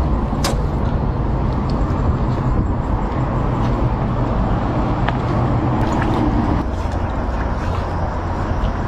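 Small boat's motor running steadily with a low hum, with a few faint clicks over it.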